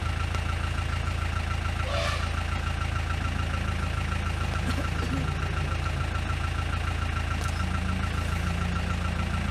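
A vehicle engine idling steadily: an even low hum with a fast, regular ticking over it.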